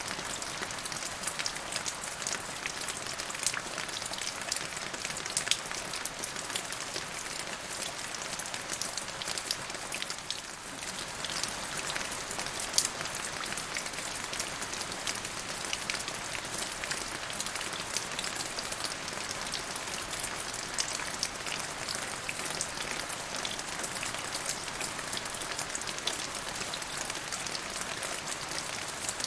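Steady rain falling, an even hiss dotted with many sharp drop ticks, easing briefly about a third of the way in.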